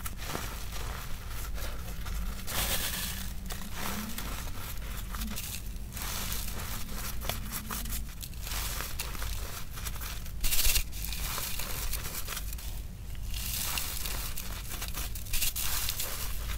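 Hand crushing and rubbing chunks of reformed gym chalk and cornstarch in a fine mesh sieve: a continuous gritty crunching and crumbling as the lumps break and the powder is pressed through the mesh, with a louder crunch about ten and a half seconds in.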